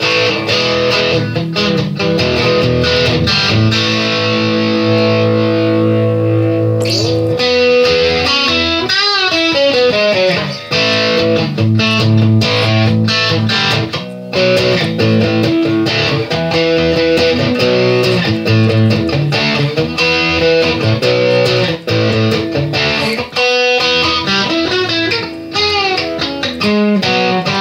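Guitar music led by an electric guitar, with sustained notes and bent notes.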